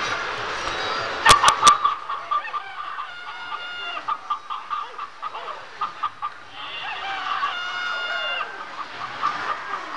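Coin-operated farm puppet show machine playing its recorded farmyard soundtrack: hens clucking, with a rooster crowing twice. Three sharp clicks sound about a second in, as the machine starts.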